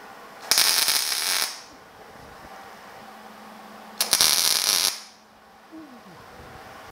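MIG welder laying two short tack welds about three seconds apart, each arc lasting about a second. The tacks fix steel pins onto dented cab sheet metal so the dent can be pulled out with a slide hammer.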